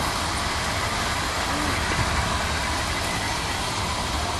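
Steady outdoor background noise: a continuous low rumble under a soft hiss, with no distinct event standing out.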